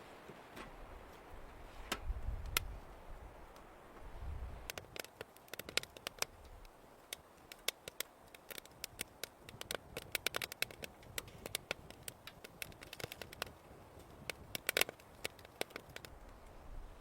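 A wood fire crackling and popping, with irregular sharp snaps that come thicker and faster after the first few seconds.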